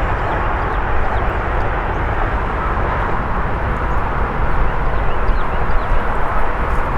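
Steady wind buffeting the microphone in strong gusty wind, a dense rumbling rush with no break.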